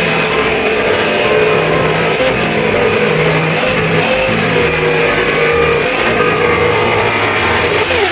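Electric power tool motor running steadily under load with a constant whine, its pitch dropping as it stops at the end.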